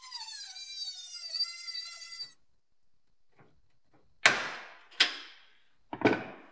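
Small handheld rotary tool with a cutting disc whining at high speed as it cuts into a steel star rivet, its pitch dipping under load, then it stops about two seconds in. Three sharp knocks follow near the end.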